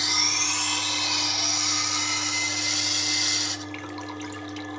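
Kitchen knife edge grinding on the turning wet stone wheel of a Tormek T8 sharpener during a sharpening pass: a steady hissing grind whose pitch shifts as the blade is drawn and pivoted along the wheel, over the machine's steady motor hum. About three and a half seconds in the grinding stops abruptly as the knife is lifted off the stone, leaving the hum and a faint trickle of water.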